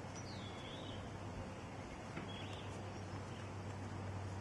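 A few faint, short bird chirps over a steady low background hum.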